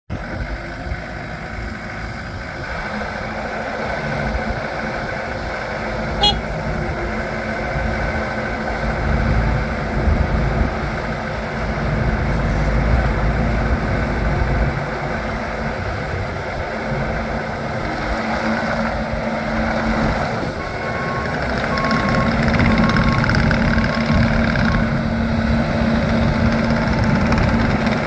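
Bobcat T770 compact track loader's diesel engine running under load as the machine is worked, the sound swelling and easing with the work. A backup alarm beeps at an even rate for a few seconds about three-quarters of the way through.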